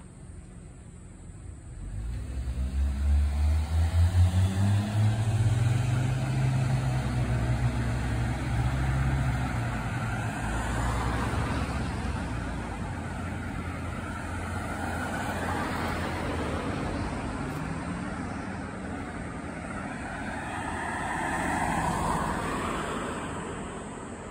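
Road traffic: a motor vehicle's engine accelerating past, its pitch climbing as it speeds up, then tyre noise that slowly fades. A second vehicle swells up and passes near the end.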